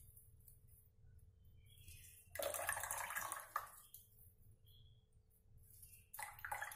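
Wet beetroot pulp squeezed by hand in a steel strainer, with juice trickling into a steel tumbler below. There are two short spells of wet squishing and splashing: one about two and a half seconds in, lasting about a second, and another near the end.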